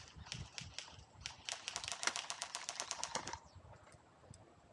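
Airsoft electric gun firing a full-auto burst: a fast, even string of sharp clicks, about a dozen a second, lasting about two seconds, with a few single clicks before it.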